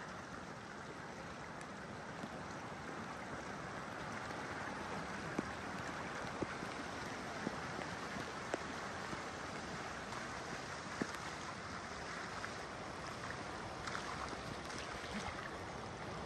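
Steady rush of flowing flood water, with a few faint sharp clicks around the middle.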